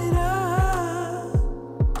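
Background music with a steady beat: a deep kick drum under a wavering melody line. The melody breaks off near the end, leaving mostly the drum.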